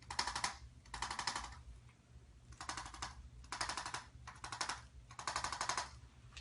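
Handheld chiropractic percussion adjusting instrument firing six short bursts of rapid clicking taps, each about half a second long. It is working the tight neck muscles where they insert at the base of the skull, to loosen them.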